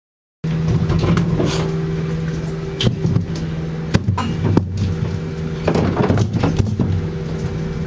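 Steady low machinery hum from a fishing boat's engine and deck gear, with scattered sharp knocks and thuds as tuna are handled in the fish hold. The hum starts about half a second in, after a moment of silence.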